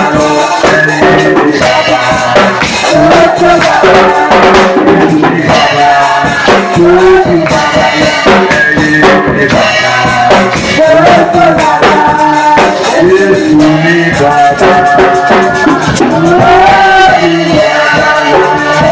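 Worship music: voices singing over drums and shakers, loud and continuous.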